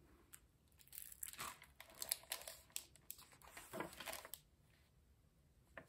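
Faint rustling and crinkling as a hardcover book is opened and its glossy jacket and pages are turned, with a few light clicks.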